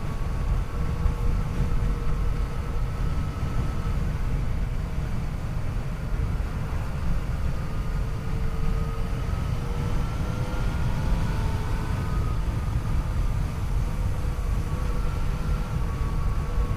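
Yamaha FJ-09's inline three-cylinder engine running under way, its pitch drifting gently up and down with the throttle, under a heavy low rush of wind on the microphone.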